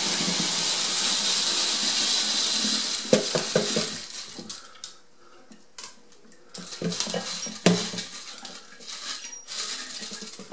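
Stainless steel tumbling pins, each 47 thousandths of an inch across, pouring from a jar into a tumbling barrel half full of water. A steady rushing, rattling stream lasts about three and a half seconds, then breaks into scattered metallic clinks and knocks as the last pins are shaken out.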